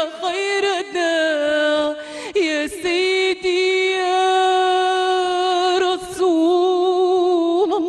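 A woman singing an Arabic Islamic devotional nasheed solo into a microphone. She ornaments the opening notes with quick turns, then holds two long, drawn-out notes.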